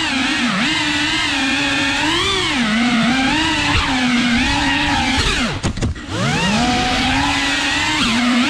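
FPV quadcopter's motors and propellers whining loudly, the pitch rising and falling constantly as the throttle changes. About five and a half seconds in, the whine drops steeply and dips for a moment, then climbs back.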